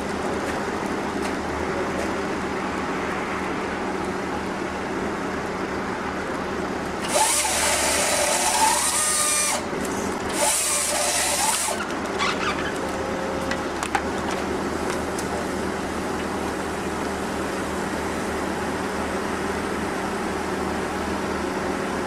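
An engine running steadily, with two loud hissing bursts, the first about seven seconds in and lasting a couple of seconds, the second shorter, a few seconds later.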